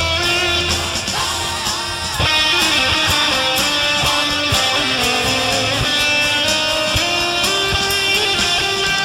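Live band jam in a Chicago blues style: strummed electric guitar and bass under a lead line of held and sliding notes, the band getting louder about two seconds in.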